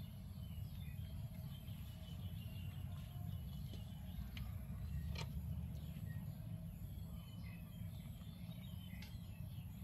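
Outdoor background: a steady low rumble with scattered faint high chirps, and a single sharp click about five seconds in.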